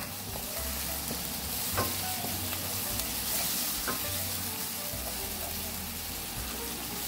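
Onion-tomato masala sizzling in a nonstick frying pan with a little water just added, while a wooden spatula stirs and scrapes through it. There are two light taps, about two and four seconds in.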